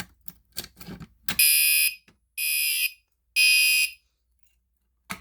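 Gentex GEC3-12WR fire alarm horn sounding one temporal-3 cycle: three short, shrill blasts about a second apart, then it stops. A few light clicks from the key or button being worked come first.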